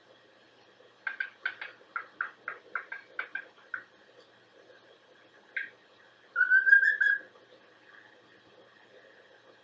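Pet bird chirping and whistling: a quick run of a dozen or so short chirps, a lone chirp, then one louder rising whistle a little under a second long.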